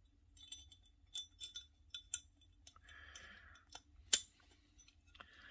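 A run of small metal clicks and light scraping as a pistol extractor is worked into its slot in the steel slide by hand, with one sharper click about four seconds in.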